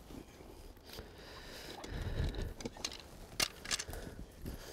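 Dry reed stalks rustling and crackling as a person pushes through them on foot, with a few sharper snaps and a low rumble about halfway through.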